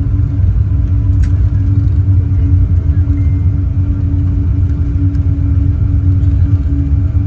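Boeing 777-200 cabin noise from economy: a steady, loud low rumble of engines and airflow with an even hum over it, and one brief click about a second in.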